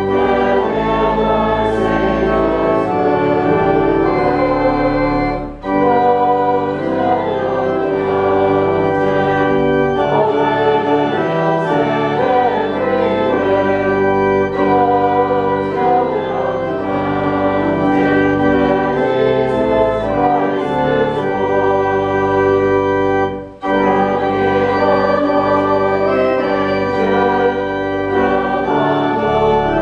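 Church organ playing a hymn with the congregation singing along, broken by two short pauses between lines, one about five and a half seconds in and one about 23 seconds in.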